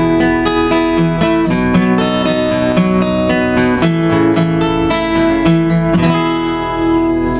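Acoustic guitar, a Martin D-16 dreadnought, strumming the closing chords of the song, then a last chord strummed about six seconds in and left to ring.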